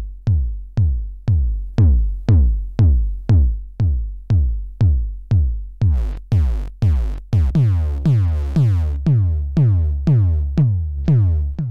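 Eurorack drum machine kick drum playing a steady pattern of about two hits a second, each a deep thump falling in pitch. From about six seconds in the kick turns brighter and grittier as the channel send to the Mutant Hot Glue mixer's built-in distortion is turned up.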